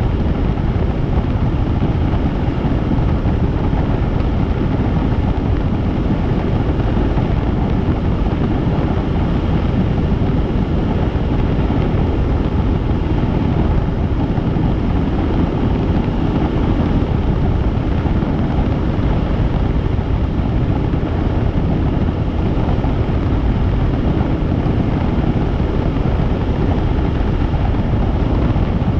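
Helicopter in flight: a steady, loud, unbroken noise of rotor and engine, heaviest in the low range.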